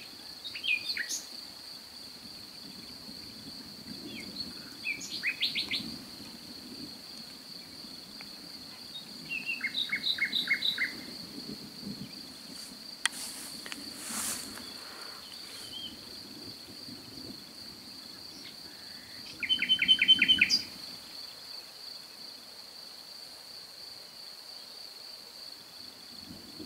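A songbird singing a few short phrases of fast repeated notes, the loudest about twenty seconds in. Underneath runs the steady high trill of a cricket.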